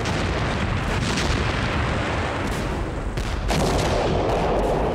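Artillery and gunfire in a continuous din of battle, with several sharp shots standing out, louder from about three and a half seconds in.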